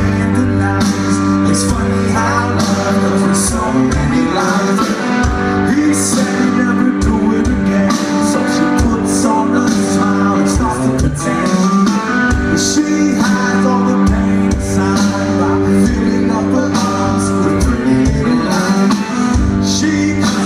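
Rock band playing live: electric guitar, drums and a singer, heard from among the crowd.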